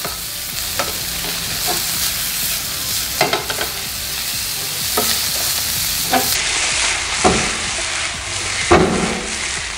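Shrimp sizzling in a hot non-stick frying pan, with a steady hiss. A wooden spatula scrapes and knocks against the pan about once a second, with one louder knock near the end.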